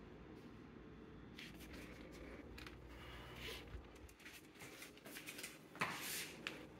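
Quiet room with faint, scattered clicks and scrapes, a little louder near the end: a beagle's claws on the laminate floor and a plastic slow-feeder bowl being picked up.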